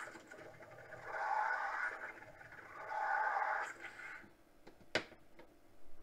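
Steam wand of a Zelmer ZCM7255 espresso machine frothing milk in a glass cup, the steam hissing into the milk in two surges about two seconds apart, then stopping about four seconds in. A single sharp knock follows near the end.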